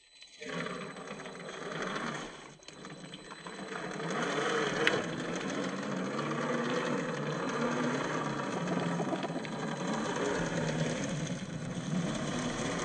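Axial SCX10 III RC crawler's brushed 540 electric motor and gear drive whining, its pitch wavering up and down with the throttle as it crawls, getting louder about four seconds in.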